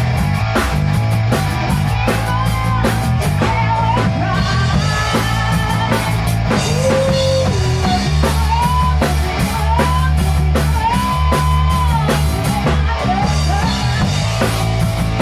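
Rock band rehearsing a song: drum kit keeping a steady beat under bass and electric guitar, with a lead line of long held notes that bend upward.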